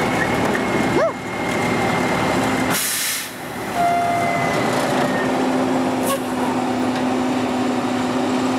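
Harvest machinery running steadily with a constant hum. About three seconds in there is a short hiss, after which the level dips briefly.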